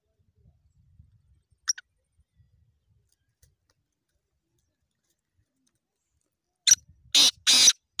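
Black francolin giving a single short high note a couple of seconds in. Near the end comes its loud call: a quick run of about four harsh notes.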